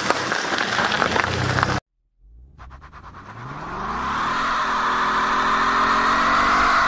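A car engine pulls away for the first couple of seconds, then cuts off. After that a Ford Mustang's 5.0 V8 revs up and holds high revs in a line-lock burnout, its spinning rear tyre squealing loudly over the engine.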